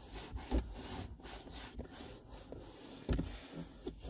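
Cleaning wipe rubbing over a car's plastic dashboard, with two soft knocks, one about half a second in and one about three seconds in.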